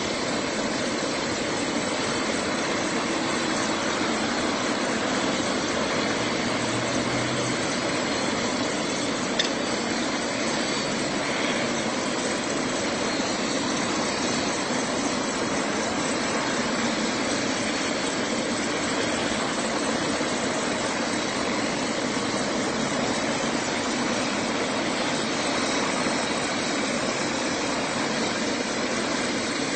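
Bell 407 medical helicopter running on the pad, its turbine and rotors turning at a steady pitch without lifting off. One brief click about nine seconds in.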